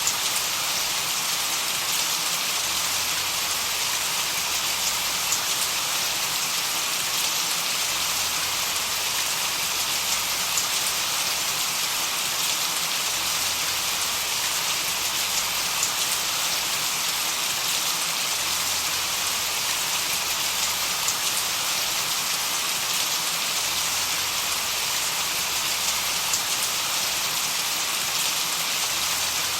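Steady rain-like white noise played for tinnitus masking: an even, unbroken hiss strongest in the upper range, with faint scattered drop-like ticks and a weak low swell that comes back about every five seconds.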